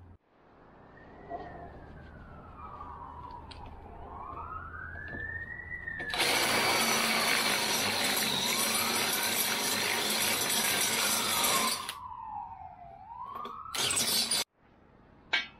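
Cordless angle grinder running against a steel bar for about six seconds, then again briefly near the end. Under it, a siren wails up and down several times.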